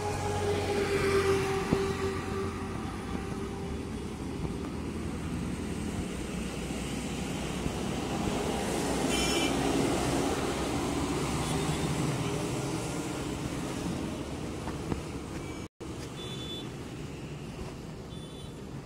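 Highway traffic going by: a steady road rumble of passing vehicles, with one louder pass in the first couple of seconds. The sound cuts out for an instant about three-quarters of the way through.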